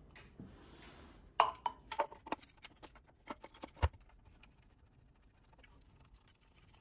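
Light metallic clicks and knocks as the Land Rover Td5's centrifugal oil filter housing is handled and fitted onto the engine block. A scattered run of clicks over a couple of seconds ends in one heavier knock about four seconds in.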